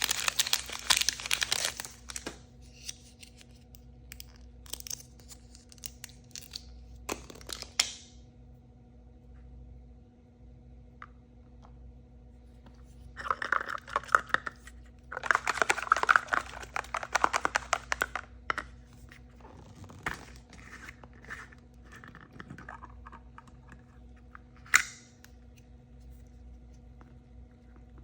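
Crinkly plastic toy packaging being crumpled and torn open by hand, in bursts with pauses between them, the longest in the middle, and a single sharp snap about three-quarters of the way through.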